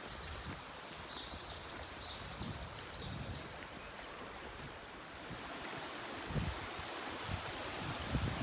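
Low rushing of a mountain stream with wind rumble. A quick series of short bird chirps sounds in the first three seconds. About five seconds in, a steady high-pitched cicada drone sets in and grows louder.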